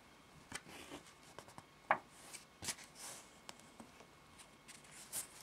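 Pages of a small paperback picture book being turned by hand: faint paper rustles and scattered soft clicks.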